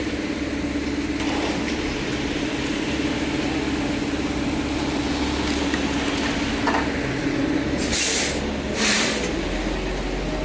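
Concrete mixer truck running steadily, with two short, loud hisses of air about eight and nine seconds in.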